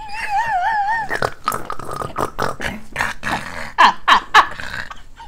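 A high, wobbling vocal noise held for about a second, then a run of short, loud bursts of laughter.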